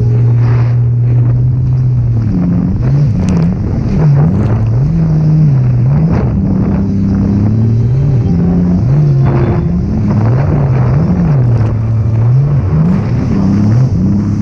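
Sea-Doo jet ski's supercharged three-cylinder engine running at speed, its pitch rising and falling again and again about once a second as the throttle and load change over the waves.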